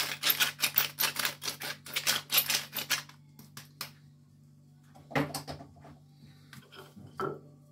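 Hand pepper mill grinding, a quick run of gritty clicks, about six or seven a second, that stops about three seconds in.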